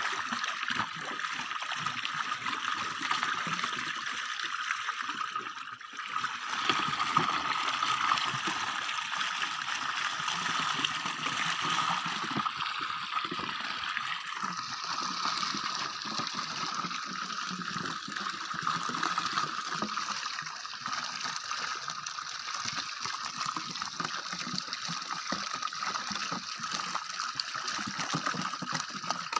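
Water splashing and trickling as a catch of kissing gourami (tembakang) thrashes inside a net fish trap.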